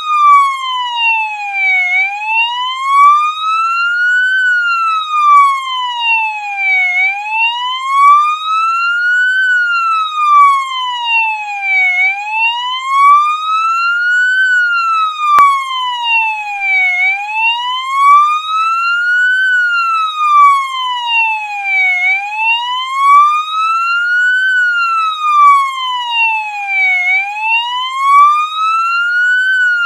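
Police siren in its wail mode: a single tone with overtones that glides slowly up and down in pitch, one rise and fall about every five seconds.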